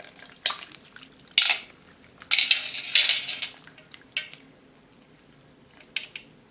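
Plastic pearl beads clicking and crackling against each other in a series of short bursts, the longest run a little over two seconds in, while a pearl-bead slime is being worked.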